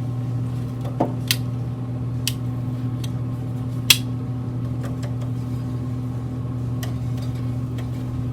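Steady low hum of a pellet smoker's fan running, with scattered sharp metallic clicks and clacks over it, the loudest about four seconds in.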